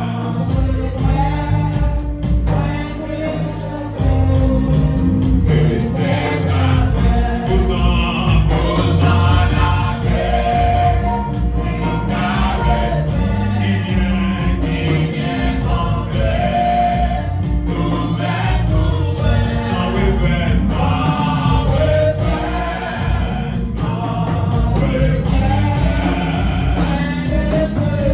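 Live gospel worship song: a male lead singer and backing singers sing through microphones and a PA, accompanied by electric keyboard and a drum kit keeping a steady beat.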